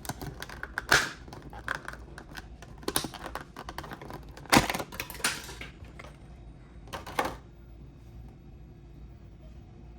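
Cardboard and plastic packaging of a trading-card collection box being handled: irregular clicks, taps and knocks, the loudest about a second in and again about four and a half seconds in, dying down over the last couple of seconds.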